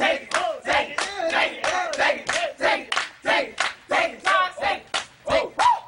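Step dancing: sharp hand claps and body slaps in a fast beat of about four a second, with voices shouting and chanting along.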